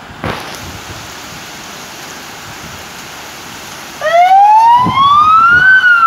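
An emergency vehicle siren starts about four seconds in: one loud wail rising in pitch for nearly two seconds, then dipping slightly and holding. Before it, a steady hiss of heavy rain and wind.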